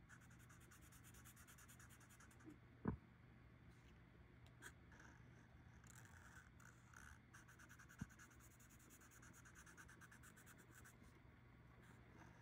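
Faint, rapid scratching of a green Sharpie marker colouring in a box on a paper card, with two soft knocks, one about three seconds in (the loudest moment) and one around eight seconds.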